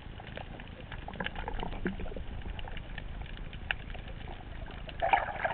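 Underwater sound heard through a GoPro housing: a muffled low rumble of water with many scattered crackling clicks, and a bubbling burst near the end.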